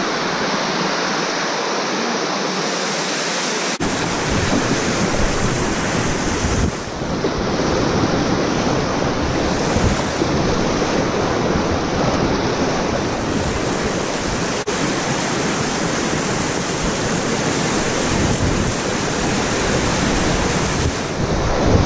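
Whitewater rushing and splashing around a packraft, heard close up from the boat, with water and wind buffeting the microphone. The sound is a steady, dense noise.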